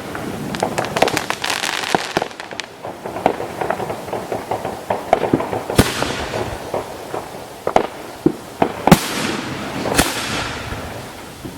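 Fireworks display: aerial shells bursting with sharp bangs that echo. A rapid run of crackling reports comes in the first two seconds, and the loudest booms come about nine and ten seconds in.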